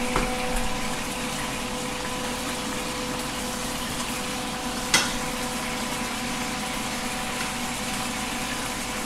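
Beef pieces frying in hot oil in a nonstick pan, a steady sizzle, with one sharp click about five seconds in.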